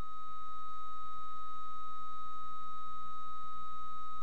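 A steady electronic tone held at one pitch without a break, a single continuous beep.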